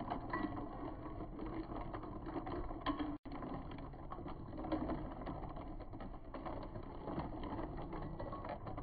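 A long spoon stirring ice in a glass carafe of drink, with light clinking and rattling of ice and metal against the glass over low room noise.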